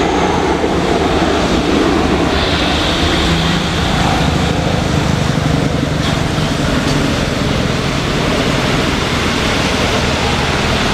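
Jet airliner engines running in heavy rain: a steady, loud rush with a faint engine whine that comes in about two seconds in.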